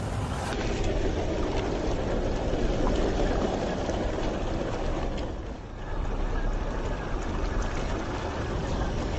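MN128 RC crawler driving through a shallow muddy puddle: its small electric motor and geared drivetrain run while the tyres churn and splash the water. The sound dips briefly a little past halfway.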